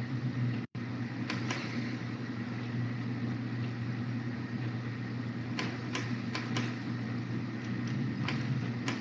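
Steady low electrical hum and hiss from an open voice-chat microphone, with a few faint clicks; the line cuts out for an instant less than a second in.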